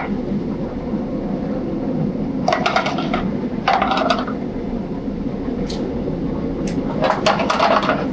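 Steady noise of a busy commercial kitchen line, gas range and exhaust hood, broken by three short bouts of rapid metal clatter about two and a half, four and seven seconds in as sauté pans are shaken and shifted on the range grate.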